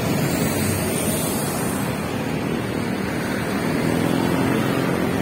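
Steady rushing noise of passing road traffic, with wind buffeting the phone's microphone.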